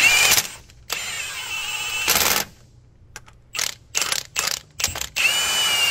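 Cordless impact wrench running main bearing cap bolts down at its lowest setting, in bursts: a short one at the start, a run of about a second and a half, a few short blips, then another run near the end.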